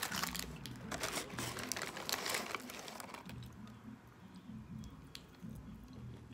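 Paper burger wrapper crinkling and rustling as the burger is handled, dense for about the first three seconds, then fainter, with soft chewing of a French fry.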